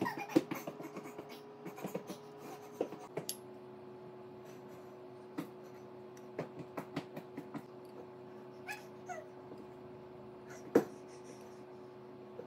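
Scattered light clicks and taps of kitchen handling over a steady low hum, with one sharper knock near eleven seconds in. A short falling animal cry sounds about nine seconds in.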